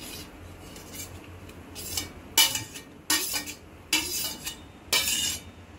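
A perforated stainless-steel spoon scraping and clinking against a steel plate while scooping crumbled milk curds off it. There are about five ringing clinks, starting about two seconds in.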